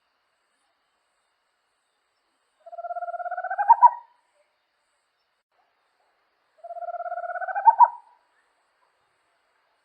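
A small owl singing twice, about four seconds apart. Each song is a rapid purring trill that rises slightly in pitch and ends in two louder, accented notes.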